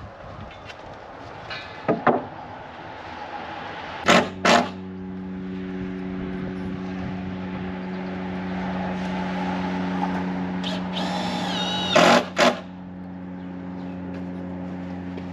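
Sharp knocks, twice in close pairs, and a steady low machine hum that starts right after the first pair and keeps running.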